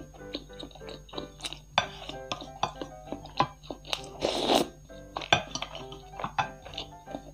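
Background music playing over eating sounds: a wooden spoon and fork clicking and scraping against a ceramic plate, and chewing. A short loud rush of noise comes about four seconds in.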